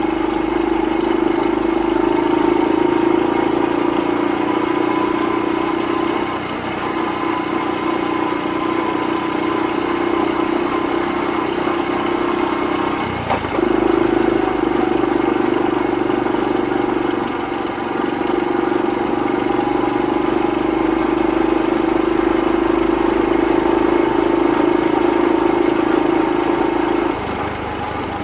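Honda Super Cub 50 (AA01, carbureted) single-cylinder four-stroke engine and exhaust running steadily while riding. The note dips briefly a few times, and near the end it drops off.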